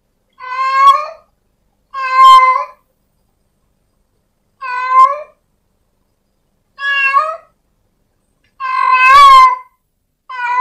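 Cat meowing: six loud meows, each under a second long, with gaps of one to two seconds between them.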